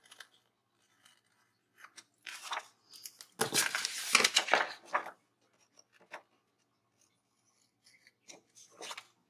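Paper and sticker sheets being handled, rustling in short bursts, with a longer, louder stretch of about a second and a half near the middle.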